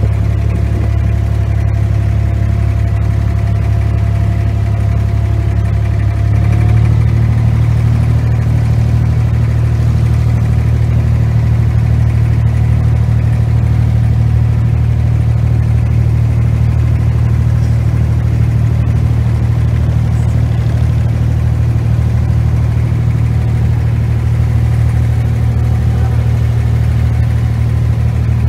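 Boat engine running steadily, heard from aboard as the boat crosses the water. About six seconds in it picks up slightly in pitch and loudness as it speeds up, then holds a steady drone.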